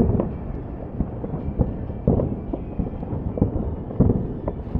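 Fireworks display booming overhead: about a dozen irregular deep bangs, some in quick pairs, over a continuous low rumble.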